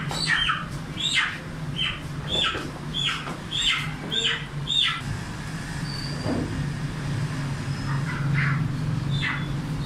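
A bird squawking in a run of short calls, each falling in pitch, about two a second for the first five seconds, then a few more near the end, over a steady low hum.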